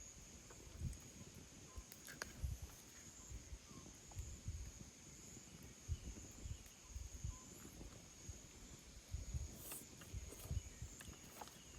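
Insects trilling steadily in a high, even tone, with soft low thumps scattered through.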